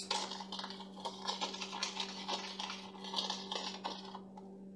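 A spoon stirring and scraping a dry spice mix in a small plastic bowl: a run of soft, irregular scrapes and taps that eases off near the end, over a steady low hum.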